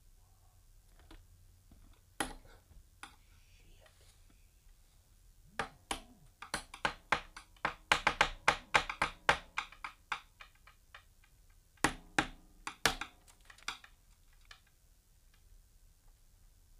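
An irregular run of sharp clicks and taps: a few scattered ones, then a fast, dense cluster from about a third of the way in to past the middle, and another short cluster a little later.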